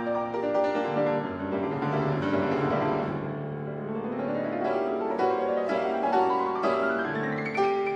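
Background instrumental music on a keyboard instrument, with fast rising runs of notes in the second half.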